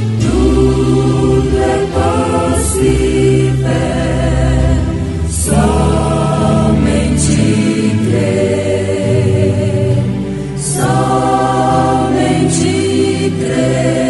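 Choir singing a hymn with accompaniment, in long held phrases with short breaks between them.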